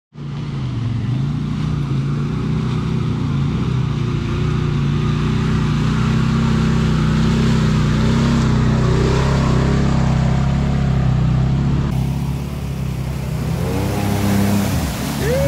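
Off-road vehicle engines running steadily in mud. Near the end a Polaris RZR 800 side-by-side's engine revs up and down a couple of times as it ploughs through the deep mud.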